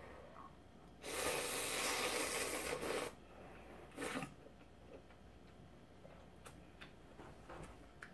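Ramen noodles being slurped in one long pull lasting about two seconds, starting about a second in, then a shorter slurp at the bowl's rim around four seconds in, followed by faint chewing clicks.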